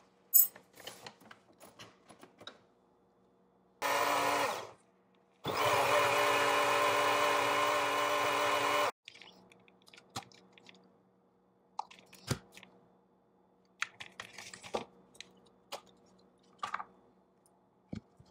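Single-serve personal blender blending a green smoothie: a short burst of under a second, then a steady run of about three and a half seconds with an even motor pitch that cuts off sharply. Scattered clicks and knocks follow as the blender cup is twisted off the motor base and handled.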